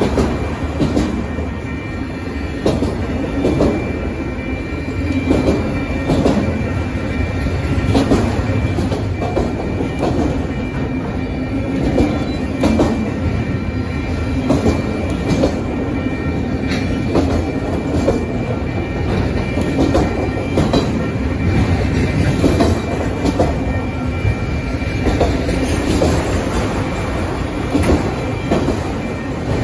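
Autorack freight cars rolling past close by: a steady rumble of the cars with wheels clicking and clacking over rail joints, and a faint steady high tone throughout.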